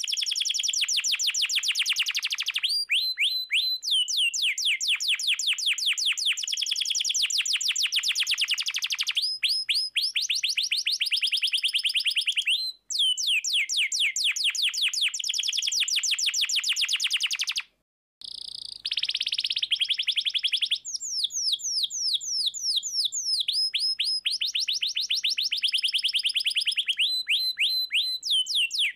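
American Singer canary singing in long, fast rolling trills of quickly repeated high notes, changing to a new trill every few seconds. The song cuts out briefly twice, about 13 and 18 seconds in.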